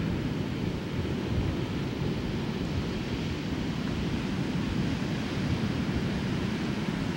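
Ocean surf breaking and washing up the beach, mixed with wind noise on the microphone; a steady noise with no separate events standing out.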